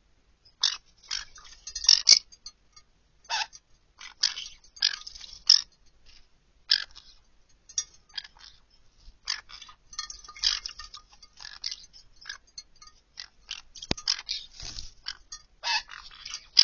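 Green-cheeked conures bathing in a shallow glass dish of water, their wings beating the water in short, irregular bursts of splashing and fluttering.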